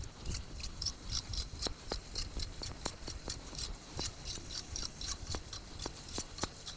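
Footsteps of a person walking briskly in sneakers on wet pavement: a quick, fairly even run of sharp ticks, about four a second, over a low rumble.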